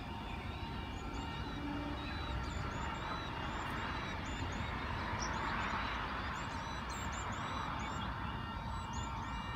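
OSCAR H-set electric train pulling away and fading into the distance, a steady low rumble with a rushing noise that swells about midway. Birds chirp over it again and again.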